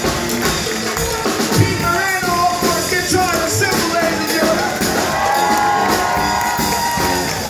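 Live brass-led band with sousaphone and saxophones playing over drums, the horns holding long wavering notes.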